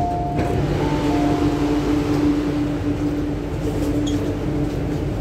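Inside an MTR Q-Train metro car at a station stop: a two-note door chime, high then low, ends in the first half-second and sounds again about a second in as the doors open. After it a steady hum runs over the car's constant rumble.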